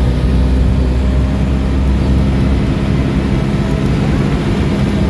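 Engine of a forest safari van running steadily at cruising speed, with its drone and road noise heard from inside the passenger cabin.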